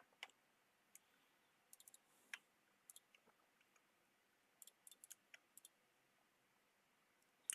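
Near silence with a dozen or so faint, short clicks, scattered singly and in small clusters.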